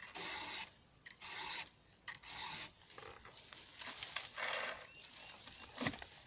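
Round file rasping across the cutters of a chainsaw chisel chain, sharpened freehand. The file makes short push strokes of about half a second each, with brief pauses between them as it is lifted off the tooth. A sharp tap comes near the end.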